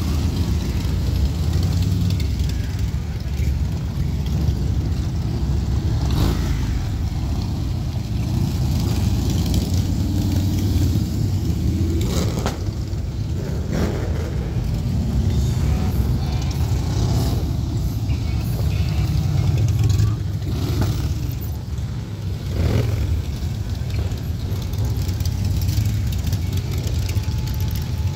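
A column of motorcycles, mostly Harley-Davidsons, riding past one after another. Their engines run in a continuous low drone, swelling louder several times as single bikes pass close.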